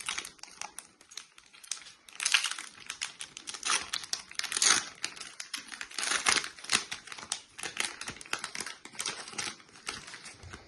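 Foil wrapper of a Paradox Rift Pokémon TCG booster pack crinkling and tearing open as it is handled, with louder bursts of crackling about two, five and six seconds in.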